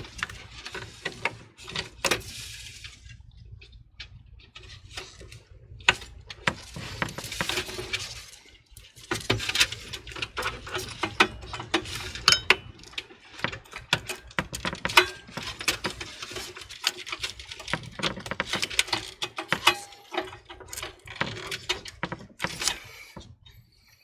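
Gloved hands handling and routing sleeved PC power cables inside a computer case: an irregular run of rustling and many small plastic clicks and taps.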